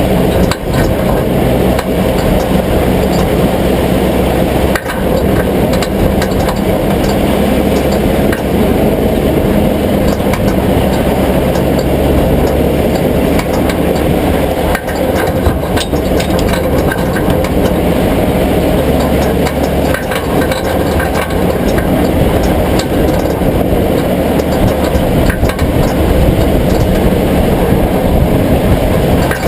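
A vehicle engine running steadily with a strong low rumble, and a few sharp clicks or knocks now and then.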